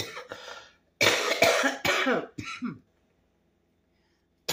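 A woman coughing hard in a run of coughs through the first three seconds, then a short pause and another cough at the very end, set off by the cayenne pepper in the soup she is eating.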